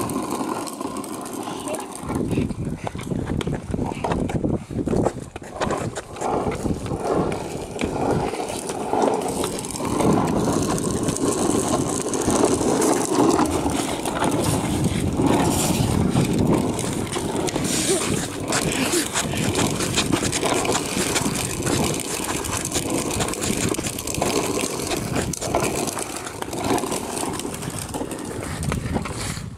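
Wheels of a child's plastic ride-on toy and inline skates rolling on rough asphalt: a continuous gritty rumble with many small clicks and scrapes, with children's voices mixed in.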